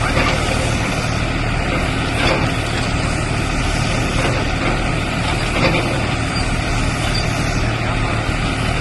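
Tractor engine running steadily while powering a silage baler, with the baler's machinery clattering and a couple of short clanks near the middle.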